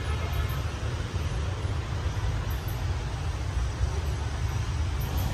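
Steady city street traffic noise with a low rumble and no distinct events.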